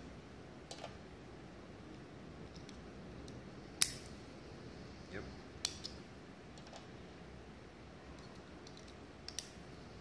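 Sharp plastic clicks of LC fiber-optic loopback connectors latching into an SFP transceiver's port as they are plugged in and pulled out, the click being the sign that the latch has seated properly. Several separate clicks, the loudest about four seconds in and a quick pair near the end.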